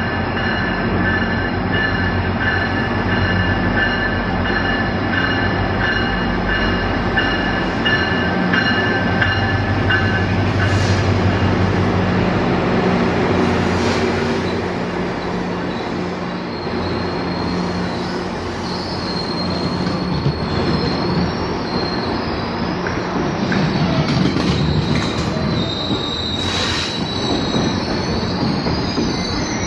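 Commuter train running on its rails: a steady low rumble with high-pitched wheel squeal, the squeal moving higher in the second half.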